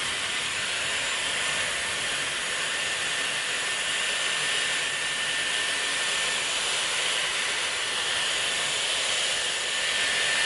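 Dyson Airwrap styler running on its heat setting with hair wound on the curling barrel: a steady rush of blown air with a thin, even high whine from its motor.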